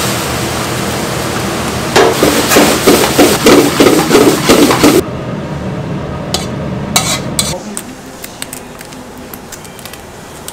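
A spatula stirring and scraping food in an aluminium wok over a gas flame: a sizzle, then about three seconds of fast, loud clattering strokes against the pan. It is followed by a few clinks as the wok is scraped out into a steel tray.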